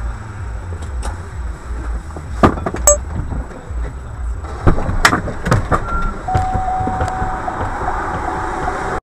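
A low rumble inside a car, with several sharp knocks and clatters, then a high beeping tone repeating from about six seconds in.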